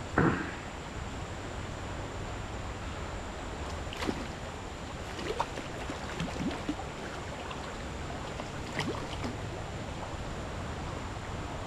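Shallow stream water running steadily, with one sharp splash just after the start and a few smaller splashes later, as a hooked brown trout is played at the surface.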